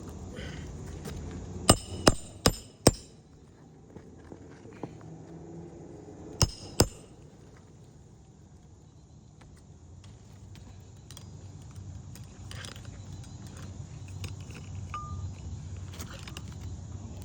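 Asphalt shingles being pried up with a roof snake: a quick run of four sharp snaps in about a second, then two more a few seconds later, as the sealed shingles pull loose.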